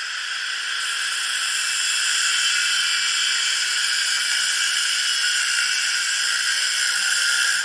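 Handheld angle grinder cutting steel, running steadily under load. The metal is being trimmed so the belt can clear.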